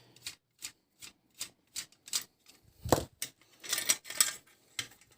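Sharp clicks and taps of small plastic and metal parts being handled while an electric sewing-machine foot pedal is taken apart. There are about a dozen clicks, roughly two a second, with a denser clatter a little past halfway.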